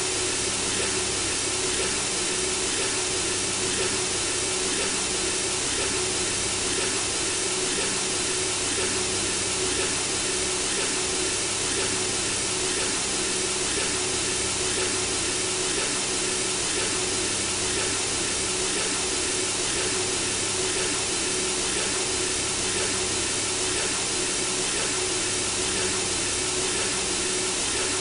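Synthesizer-generated white noise: a steady, unchanging hiss with a steady low tone beneath it.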